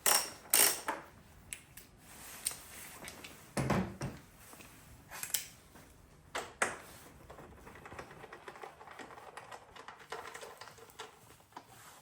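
Hand-tool work on motorcycle seat bolts: a series of irregular metal clicks, taps and knocks from a socket and ratchet taking off 10 mm nuts, with a few louder knocks early on and near the middle and lighter ticking later.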